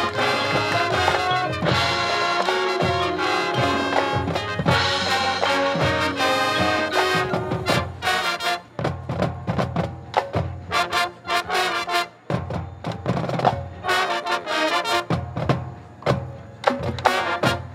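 High school marching band playing. For the first half the full band sounds brass chords over percussion. From about eight seconds in it thins to a choppier passage of short drum and mallet-percussion strikes, with marimbas in the front ensemble.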